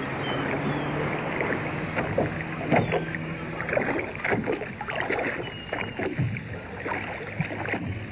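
Boat motor running steadily under a wash of water and wind noise, with irregular splashes.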